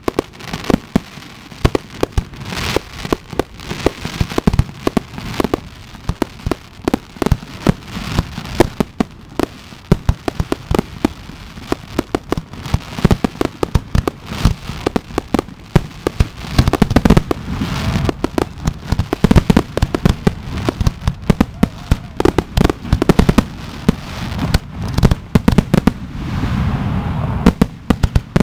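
Fireworks display: shells bursting and crackling one after another in a dense, continuous string of bangs, coming thickest in the second half.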